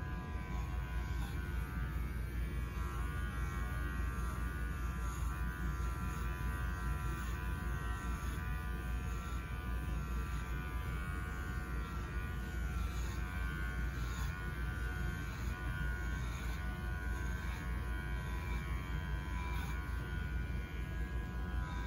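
Electric pet grooming clippers running steadily with an even buzzing hum while trimming a schnauzer's coat.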